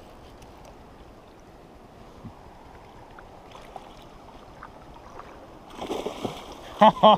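Tiger fish thrashing and splashing at the surface as it is scooped into a landing net, about six seconds in, over a steady hiss of river water and wind. Right at the end a person breaks into loud, rapid, repeated whooping cries.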